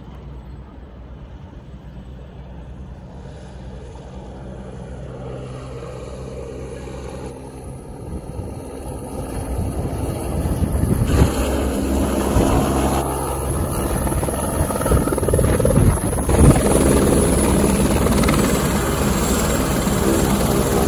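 Airbus AS350/H125 Écureuil single-engine turbine helicopter: a rotor beat with a high turbine whine, growing louder as it comes in. It ends loud and steady, the aircraft sitting on the ground with its rotor still turning.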